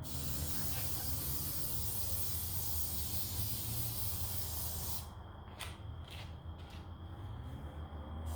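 Aerosol can of mosquito repellent spraying in one long continuous hiss for about five seconds, then stopping, followed by a few light clicks.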